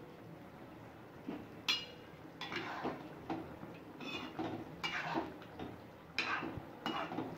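Metal ladle scraping and clinking against a kadai as a thick gravy is stirred: a string of short strokes with a brief ring, starting about a second in.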